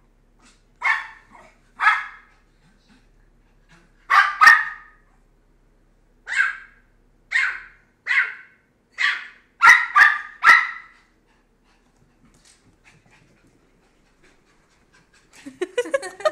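Pomeranian puppy yapping: about a dozen short, high-pitched yaps, some single and some in quick pairs, over the first eleven seconds, then a pause. A burst of rustling and clicking from handling of the camera near the end.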